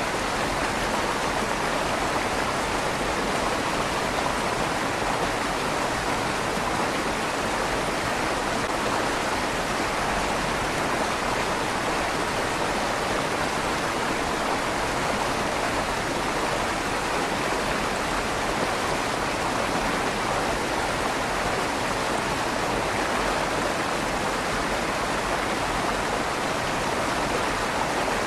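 A river flowing steadily through a stone tunnel under a bridge, the rushing water echoing off the stone walls.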